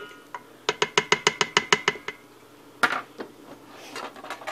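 Plastic ladle stirring sauce in a stainless steel cooking pot and knocking against the pot: a quick, even run of about a dozen clicks, then a couple of single knocks.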